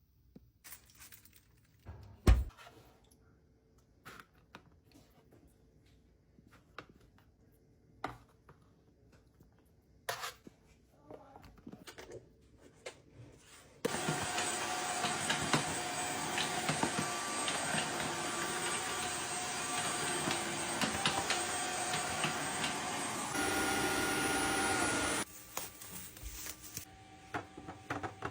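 Scattered kitchen clatter and a sharp knock, then an electric kitchen appliance motor runs steadily for about eleven seconds, changes pitch briefly near the end and cuts off suddenly.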